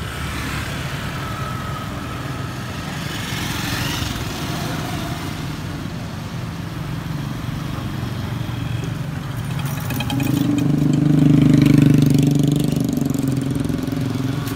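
Small motorcycle engines running in street traffic, a steady hum throughout. One grows louder close by about ten seconds in, then eases off.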